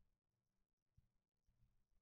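Near silence, with faint low thumps: one at the start and another about a second in. These are the drumming or heartbeat-like noises heard in the room at night, from a source not found.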